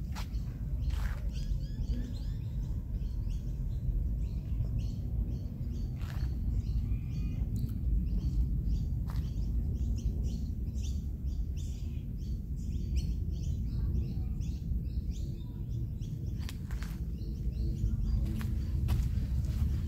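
Birds chirping in quick, dense chatter that stops about three-quarters of the way through, over a steady low rumble.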